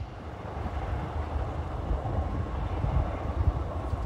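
A train running, a steady rumble that grows louder about a second in, with wind buffeting the microphone.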